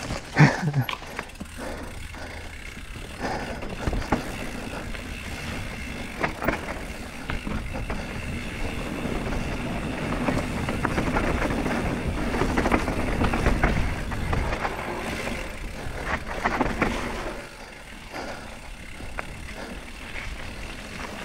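Downhill mountain bike descending a wet dirt trail: steady tyre rolling noise with rattles, clicks and knocks from the chain and suspension, and wind on the microphone. It grows louder in the middle of the run and eases near the end as the bike rolls out onto a gravel path.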